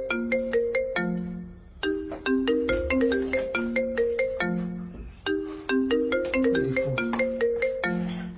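Mobile phone ringing with a marimba-style ringtone: a melody of quick mallet-like notes, the same phrase repeating about every three and a half seconds with a short pause between repeats.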